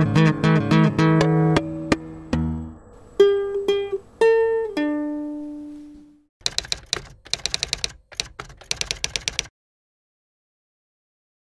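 Plucked guitar music: a quick run of notes, then a few single notes left to ring and fade. These are followed by a few seconds of quick, uneven clicks.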